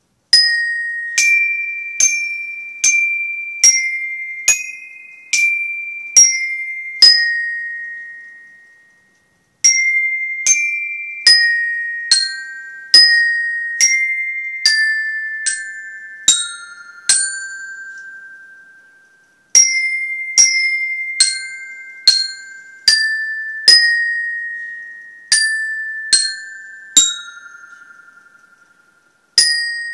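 Student bell kit (glockenspiel) played with a mallet: a slow melody of single struck, ringing metal notes, about one a second. It falls into three phrases, each ending on a longer note that rings out before a short pause.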